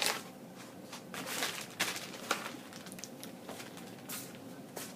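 Irregular rustling and handling noises, a dozen or so short scrapes and crinkles, like packaging or kit parts being moved about, over a faint steady hum.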